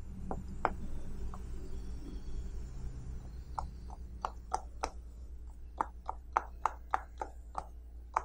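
Bubbles of a silicone pop-it fidget toy being pressed in by fingers, each giving a sharp pop. A few pops come in the first second, then a quick irregular run of pops from about three and a half seconds in.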